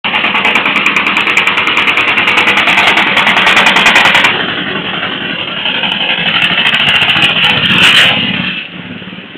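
Engine of a motorized three-wheeled cargo tricycle running with a rapid pulsing beat as it drives past, loudest about four seconds in. It dips, surges again near eight seconds, then fades as the tricycle pulls away.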